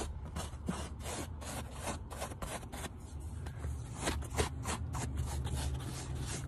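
Lilly Brush Mini Pet Hair Detailer, a small rubber-tipped brush, scraping in quick, repeated short strokes across car floor carpet, pulling up embedded dog hair.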